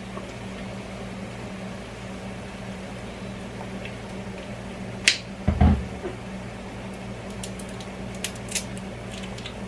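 Steady low hum of a kitchen with a gas stove running. About five seconds in comes a sharp click and then a dull knock as the Worcestershire sauce bottle is handled and set down, followed by a couple of light ticks near the end.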